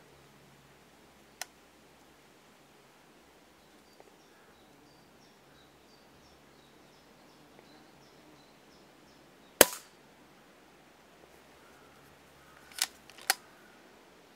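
A single sharp shot from a Daystate Red Wolf pre-charged air rifle firing a pellet, about two-thirds of the way through, followed about three seconds later by two quicker clicks half a second apart.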